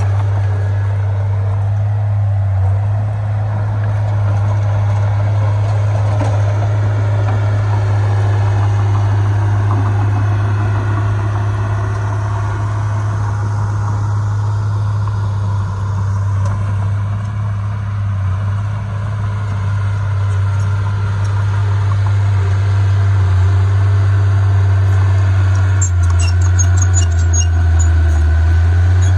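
Heavy diesel earthmoving machinery running steadily with a deep, constant engine drone. Short high-pitched squeaks and ticks come in near the end.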